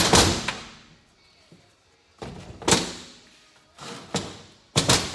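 Heavy knocks and thuds from a Kawasaki Bayou 300 ATV engine crankcase being tapped with a rubber mallet and shifted around on the workbench. The knocks come in several short spells, each ringing briefly.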